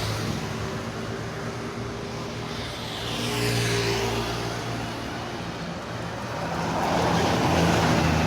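Road traffic passing close by, over a steady low engine hum: one vehicle goes past about three and a half seconds in and another near the end.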